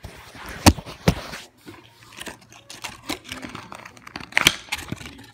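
Handling noises: a string of sharp knocks and taps, the loudest about a second in and near the end, with faint crinkling of clear plastic toy packaging.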